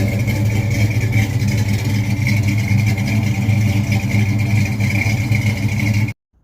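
A motor vehicle's engine running loudly at a steady speed, cutting off abruptly about six seconds in.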